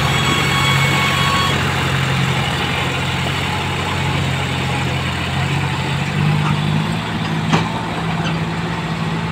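Diesel tractor engines running hard under heavy load as the tractors pull against each other, a steady low engine drone over a dense haze of noise. A single sharp click comes about seven and a half seconds in.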